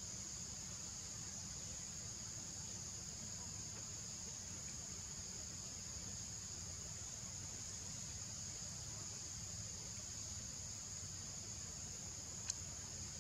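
Steady, high-pitched drone of an insect chorus, with a low rumble underneath and one short click near the end.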